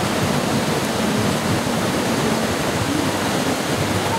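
Steady, loud rushing of a large waterfall and the white-water river below it.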